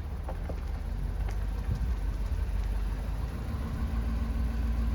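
Car engine and road rumble heard from inside the moving car: a low rumble that grows gradually louder, with a steady engine hum joining near the end.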